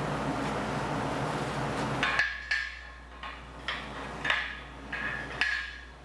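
Steel being struck: six or seven sharp taps at uneven intervals, each ringing at the same pitch, following about two seconds of steady noise.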